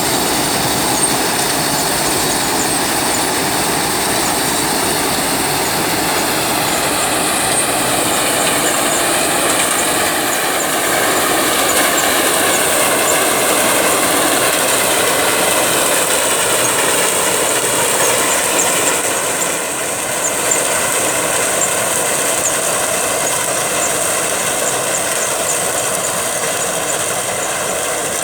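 KS tracked combine harvester running steadily under load while cutting a mustard crop: engine, threshing mechanism and crawler tracks together. The level dips briefly about two-thirds of the way through.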